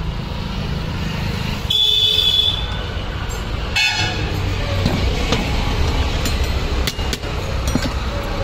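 Vehicle horns toot twice, about two seconds in and again near four seconds, over a steady low rumble of engines in passing traffic. A few sharp metal clicks of parts being handled on a workbench follow later.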